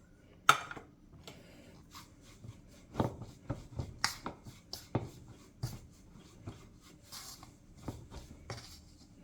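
A fork stirring and tapping against a mixing bowl as water is worked into flour for dumpling dough: irregular light clicks and scrapes, a few sharper knocks.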